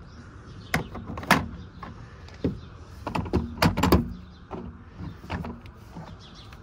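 Steel ProPress jaws being set and knocked into a hard plastic Milwaukee Packout case: a run of clunks and rattles, busiest about three to four seconds in.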